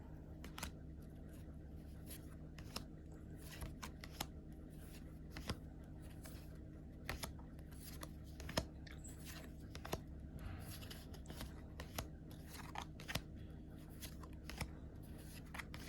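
Lorcana trading cards being handled and set down one at a time: faint, irregular soft clicks and slides, over a low steady hum.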